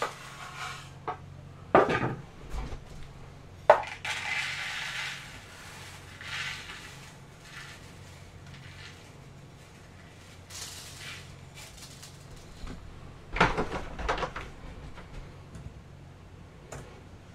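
Dry grain being poured and scooped between plastic containers and into a small robot tractor's trailer: a hissing rattle of grain as it pours, with knocks and clatter of plastic tubs being handled and set down. A faint steady hum sits underneath.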